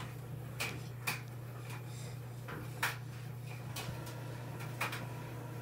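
A handful of light knocks and clunks, spaced a second or more apart, as plastic cleaning and spray bottles are handled and bumped against the floor and cabinet, over a steady low hum.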